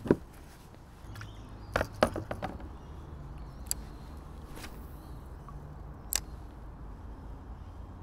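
Small spinning reel being wound, a low steady whir from about a second in, over scattered sharp clicks and knocks of rod and reel handling on a plastic kayak, with a cluster of them about two seconds in.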